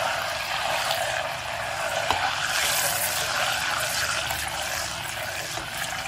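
Butter sizzling and crackling steadily as it browns in a stainless steel saucepan, the water in the butter boiling off.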